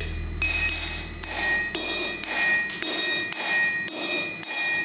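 Hand hammer blows on hot steel over an anvil, about two strikes a second, each leaving the anvil ringing with clear high tones.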